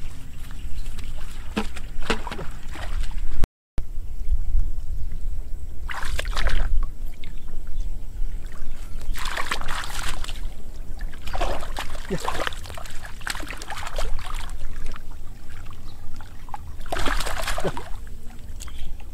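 Shallow muddy water splashing and sloshing in several separate bursts as a man wades through a puddle and gropes with his hands under the water for fish. A steady low rumble runs underneath.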